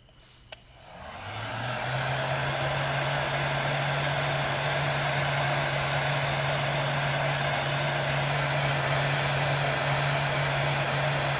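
Hair dryer switched on about half a second in, its motor spinning up to a steady blowing hum with a low steady tone, blowing hot air to shrink heat-shrink tubing over a wire splice.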